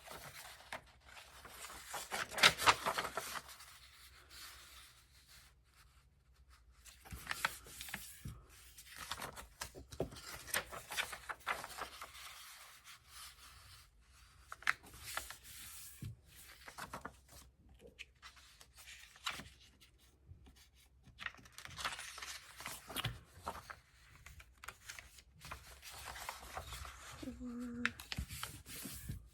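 Sheets of paper rustling and sliding as they are handled, sorted and folded in half, in irregular bursts with quiet gaps, the loudest about two to three seconds in.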